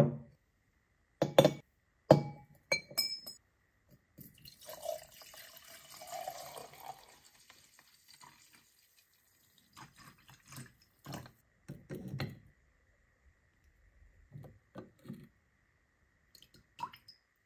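A glass beaker set down on a table, then brass blowtorch parts clinking as they are dropped into it, the glass ringing briefly. Acetic acid is poured in for about three seconds, followed by a few light knocks of metal against glass.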